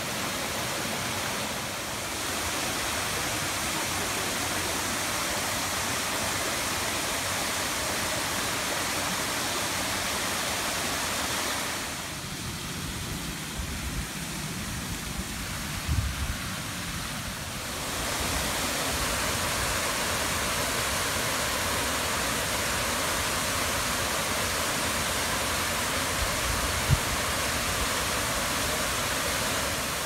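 Waterfalls pouring over rock ledges into pools: a steady rush of falling water. It is quieter for a few seconds in the middle, where a few low thumps sound.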